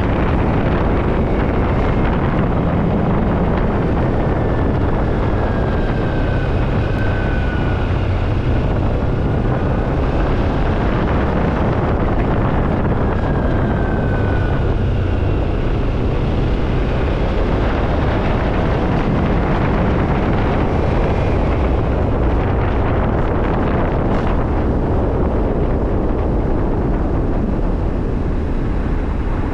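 Motorcycle riding at road speed: steady wind rush buffeting the microphone over the engine's running, with a faint whine that slides down in pitch twice.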